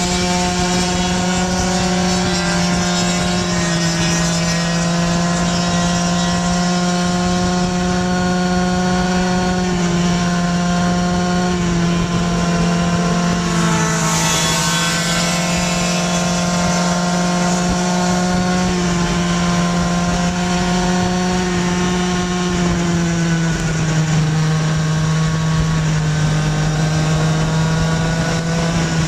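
Small two-stroke Go-ped scooter engines running steadily at cruising speed, a loud, even engine note that drops slightly in pitch about three-quarters of the way through, with a brief hiss about halfway.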